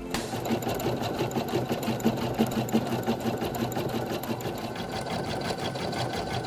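Brother Innov-is NV870 computerised embroidery machine running, its needle stitching a design into a hooped t-shirt in a rapid, even run of stitches.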